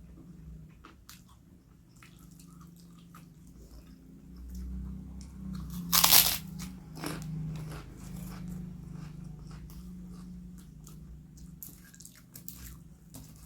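A person chewing and crunching food close to the microphone, with many small crisp crunches and one loud crunchy bite about six seconds in. A low steady hum runs underneath.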